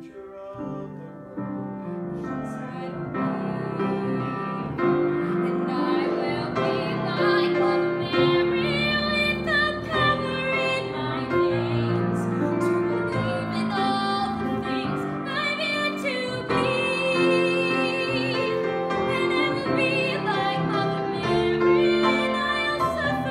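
A woman singing a song solo, accompanied on a grand piano; the piano and voice begin together at the start.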